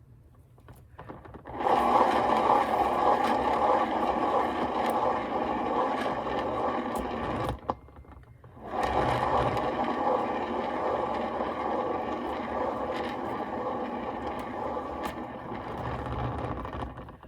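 Tiny electric leaf blower running in two long runs, blowing air across wet pour paint to push it into bloom petals. It stops briefly partway through, then runs again until just before the end.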